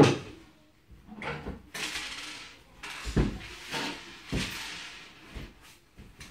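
Several clunks and knocks of laminated wooden bed panels and metal fittings being handled and set down, with bouts of rustling noise between them.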